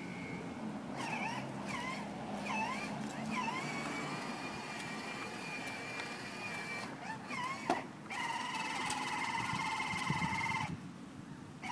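Electric motor and gearbox of a toddler's battery-powered ride-on quad whining as it drives. The pitch dips and recovers several times as it slows and picks up again, holds steady for a few seconds, shifts pitch about eight seconds in, and stops briefly near the end.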